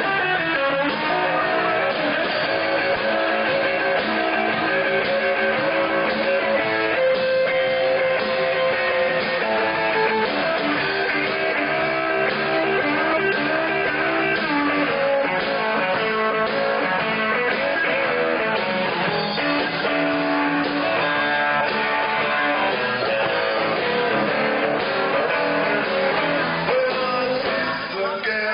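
Live rock and roll band playing, with electric guitar to the fore.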